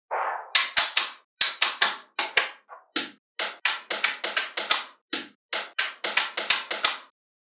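Small magnetic balls snapping onto one another one after another, an irregular run of sharp clicks, about four a second, with a brief rattle at the start.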